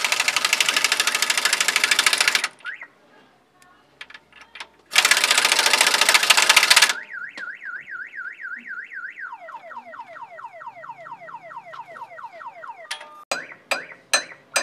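Car alarm siren cycling through its tones: two loud bursts of rapid buzzing pulses, then a fast up-and-down warble, then a long run of quickly repeated falling whoops. A few sharp clicks come near the end.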